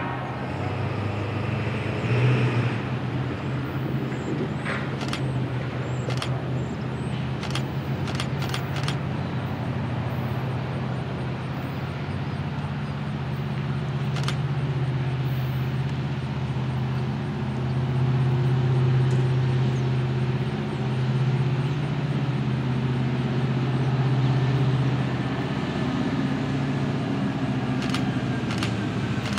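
Approaching diesel locomotive running, a steady low drone that grows a little louder past the middle, with a few short sharp ticks.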